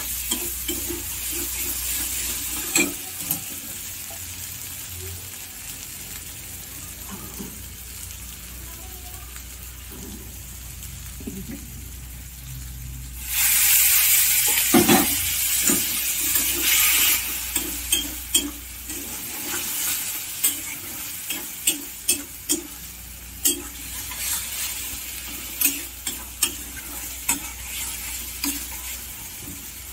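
Paneer and pea curry sizzling in a kadai while a stainless steel spatula stirs and scrapes through it. About thirteen seconds in the sizzle swells loudly for a few seconds, and in the second half the spatula knocks against the pan in a run of sharp clicks.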